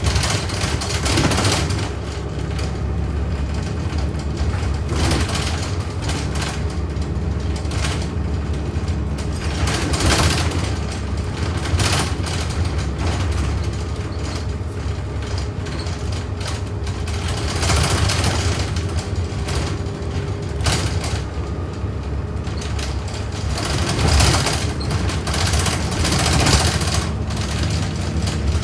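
Single-deck bus on the move, heard from inside the passenger saloon: a steady low engine and road drone with a faint steady whine, and knocks and rattles now and then as it goes over the road.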